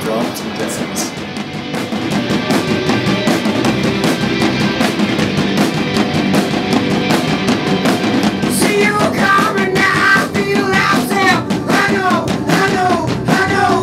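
Rock band playing: drum kit, guitars and keyboard in a dense, loud arrangement, with a voice coming in singing about halfway through.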